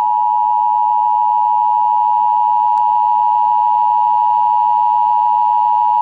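Emergency Alert System attention signal: one loud, steady tone just under 1 kHz, held without a break.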